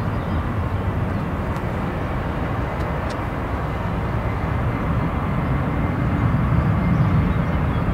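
Jet airliner engines rumbling steadily, with a faint high whine, swelling slightly about six seconds in.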